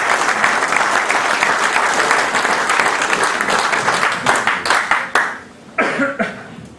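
Audience applauding, thinning to a few scattered claps and dying away about five seconds in.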